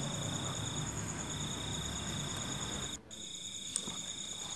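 Crickets trilling steadily in a high, pulsing tone over low background rumble; the rumble drops away suddenly about three seconds in, and there is one faint click shortly after.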